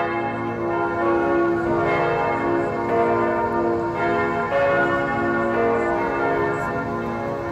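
Large church bells ringing in a continuous peal, one strike after another, the tones overlapping and ringing on.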